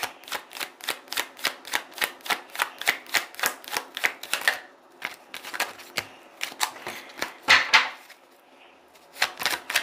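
Tarot deck being shuffled hand to hand: a quick run of card slaps and flicks, about four or five a second, that stops briefly near the end.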